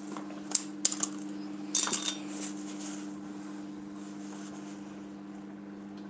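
Microwave oven running with a steady low hum while it preheats a Tupperware Micro Pro grill dish. A few light clinks and knocks come in the first two seconds.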